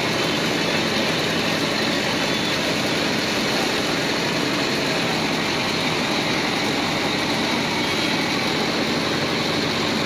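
Farm tractor's diesel engine running steadily, heard up close from the tractor's seat.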